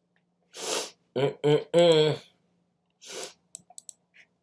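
A man's sharp breaths through the nose, one before and one after a short three-part voiced sound, a mouthful "yeah", followed by a few small mouth clicks while eating.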